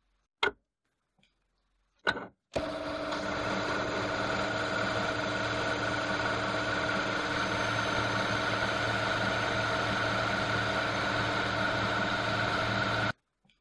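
Metal-cutting bandsaw running, its blade sawing through a metal block with a steady whir and a hiss of cutting. The saw sound starts abruptly about two and a half seconds in and stops abruptly near the end, after two short clicks.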